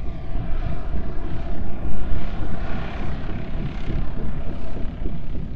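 A loud rushing roar, like a passing aircraft, over a deep continuous rumble; the roar swells about halfway through.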